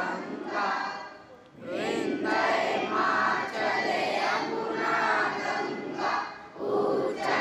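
A group of schoolchildren and teachers singing together in unison, with short breaks between phrases about a second and a half in and again near the end.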